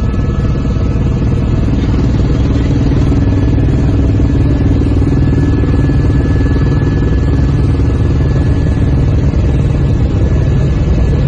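Helicopter cabin noise from inside the cockpit in flight: the engine and rotor make a loud, steady drone with a thin, steady high whine over it.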